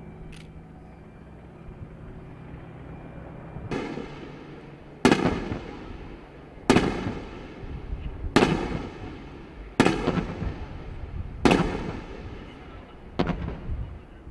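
A steady low helicopter hum, then about four seconds in a string of sharp explosive bangs begins, about one every second and a half, each with a rolling echo: munitions from an AH-64 Apache hitting a target on a live-fire range.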